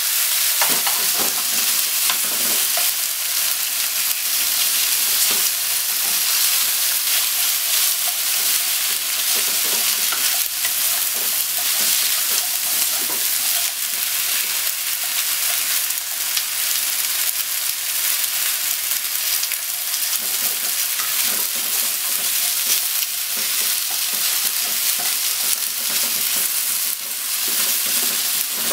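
Pork, onion and mushrooms sizzling steadily in a hot nonstick frying pan as they are stir-fried, with scattered light knocks of wooden chopsticks against the pan.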